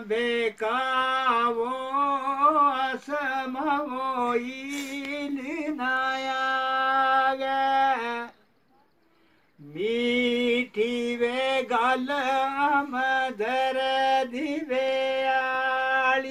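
A man singing unaccompanied, hands cupped over his ears, in a high voice that holds long notes with quavering ornamented turns. The song breaks off for a second or so about eight seconds in, then a new phrase begins.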